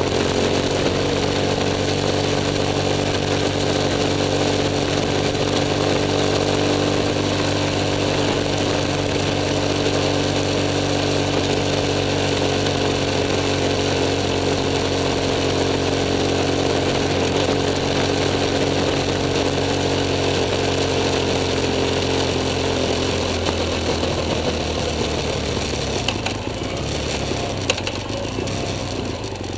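BMW F 800 S parallel-twin engine running steadily at cruising revs while riding, with road and wind hiss. About 23 seconds in the revs drop off as the throttle is closed.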